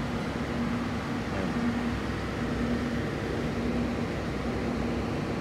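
Steady machine hum with a low rumble, and a low droning tone that pulses on and off about once a second.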